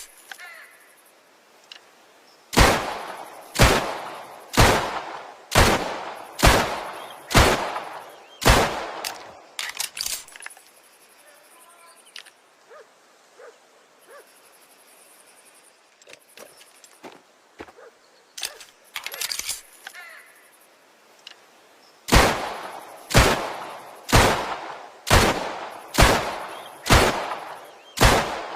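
1911 pistol firing two strings of about seven shots each, roughly one shot a second, each report dying away quickly. In the pause between the strings there are quieter clicks and knocks.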